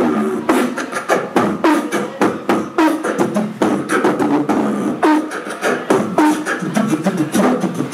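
Live beatboxing into a cupped handheld microphone: a fast run of mouth-made drum hits, with short pitched vocal tones woven between them.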